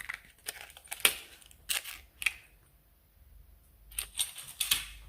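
Light clicks and ticks of small hard toy accessories being handled and set down, a handful of sharp taps with a short quiet pause in the middle.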